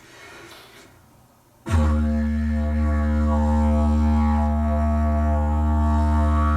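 A soft breathy sound, then about two seconds in a didgeridoo drone starts suddenly and holds steady on one low note, with a stack of overtones whose upper ones shift as the player shapes them with his mouth.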